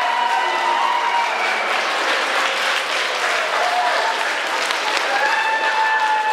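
A crowd clapping steadily, with voices calling out over the applause.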